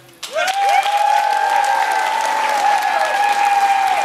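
Audience clapping after the dance ends, with several voices holding long, high cheering calls over the applause.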